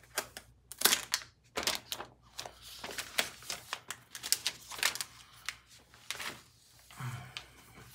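Clear plastic wrap crinkling and crackling as it is peeled off a new keyboard case and handled, a quick irregular run of sharp crackles.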